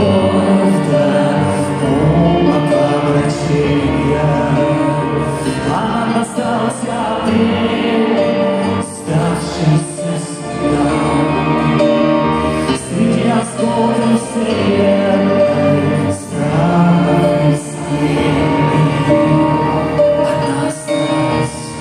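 Live rock band with a string section playing, with a voice singing over it.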